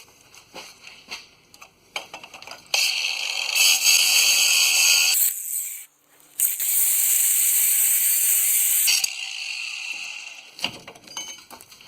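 Abrasive cutoff disc cutting through a rusted U-bolt, most likely on an angle grinder. It starts a few seconds in after some light clicks, stops briefly around six seconds, runs again for about two and a half seconds, then winds down.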